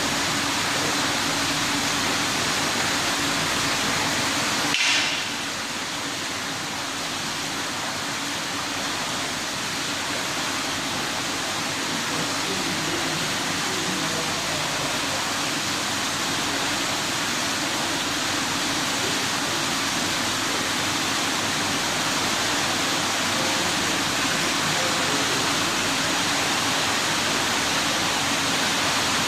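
Steady rush of running water, as from a pool in operation. About five seconds in there is a brief sharper hiss, then the sound continues slightly quieter.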